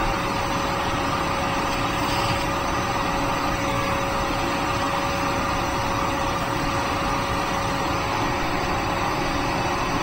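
Wet/dry vacuum running steadily with a constant whine, sucking moisture out of a wet HVAC condensate wet switch so that it can reset.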